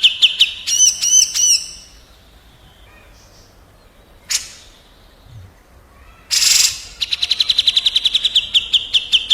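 Cucak jenggot (grey-cheeked bulbul) sound-track birdsong: a fast run of downward-slurred whistles, a few arched notes, then a quiet gap with one sharp note. A brief harsh rasp at about six seconds in, then the fast run of whistles starts again.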